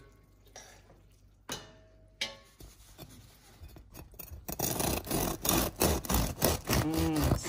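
Bread knife sawing through the crunchy crust of a freshly baked loaf, a rapid rasping scrape that starts about halfway through.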